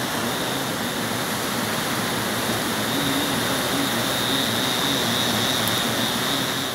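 Steady roar of heavy storm surf breaking on the beach, with wind on the microphone.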